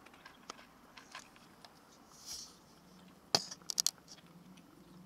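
A cat eating dry kibble from a clear food container: scattered crunches and small clicks, with a sharp click about three seconds in, followed quickly by a cluster of three more.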